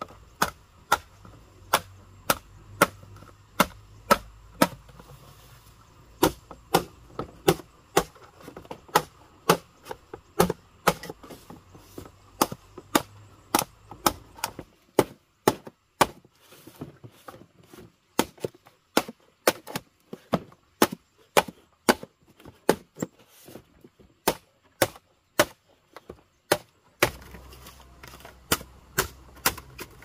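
Machete blade chopping a bamboo pole: a long run of sharp, hard strikes about twice a second, fainter and more spaced out for a few seconds past the middle.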